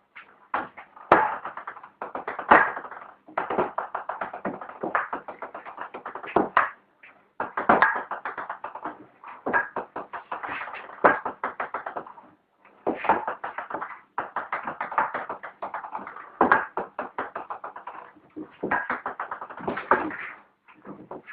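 Ping-pong ball bouncing on a table and being knocked back and forth: rapid runs of light clicks, broken every few seconds by short pauses.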